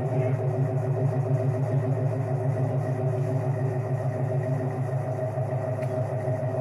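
1988 Ford Mustang GT's 5.0 V8 idling steadily through a catalytic-converter-deleted exhaust with Flowmaster mufflers, a deep, even pulsing burble from the tailpipes.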